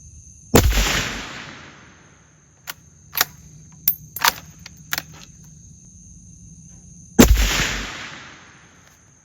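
Two suppressed .308 rifle shots about six and a half seconds apart, each a sharp crack with a short fading tail, from a Ruger bolt-action fitted with an Anechoic 30L titanium suppressor with a solid quiet end cap; the first is a cold-bore shot and the second fired once the can has warmed. Between them, a run of metallic clicks as the bolt is worked to chamber the next round.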